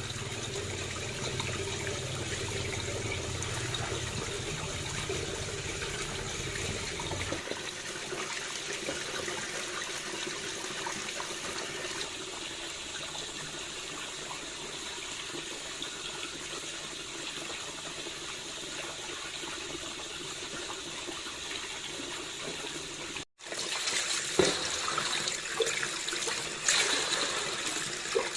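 Water running steadily, with a low rumble underneath for the first seven seconds or so. After a brief break near the end, the water is louder and more uneven, with a few sharper splashes.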